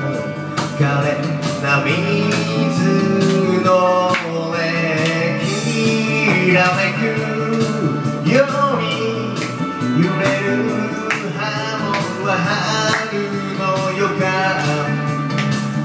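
A karaoke backing track playing with a man singing a Japanese pop song along with it into a handheld microphone.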